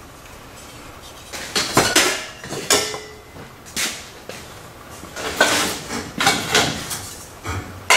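Loose metal car parts, chrome trim rings and sheet-metal pieces, clanking as they are handled and set down. The knocks come at irregular intervals, some with a brief metallic ring.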